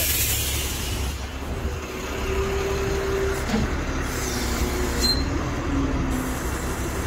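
Wrecker tow truck's engine running, with its hydraulic wheel-lift being worked from the control levers: a steady low rumble with a faint whine that drops in pitch about halfway through.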